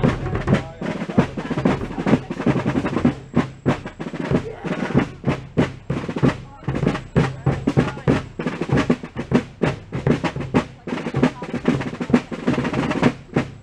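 Snare drumming at a fast marching pace, with rolls and quick repeated strokes several times a second.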